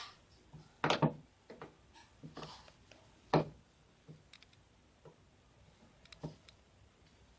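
Hand screwdriver working a screw out of a door: a few irregular light clicks and taps as the blade turns and shifts in the screw head, the sharpest about a second in and about three and a half seconds in.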